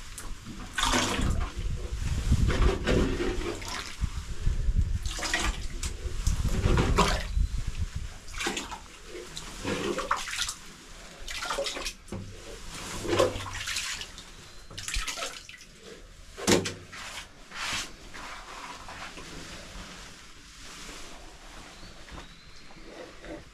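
Liquid splashing and gurgling in irregular surges, heaviest with a deep rumble in the first several seconds, then in shorter scattered splashes that thin out toward the end.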